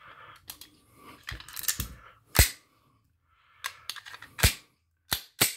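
Semi-automatic pistol being cleared of a double feed with snap caps: a string of sharp metal clicks and clacks from the magazine and slide being worked, with two louder clacks about two and a half and four and a half seconds in, and soft handling noise between them.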